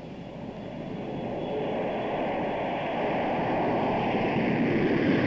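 Aircraft engine noise, a rushing sound that grows steadily louder.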